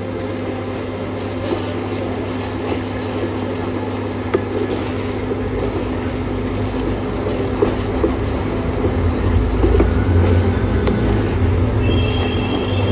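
Wooden spatula scraping and stirring a thick, bubbling milk-powder dough in a non-stick kadai, in short irregular strokes, as the mixture is cooked down until it comes away from the sides of the pan. A steady low hum runs underneath.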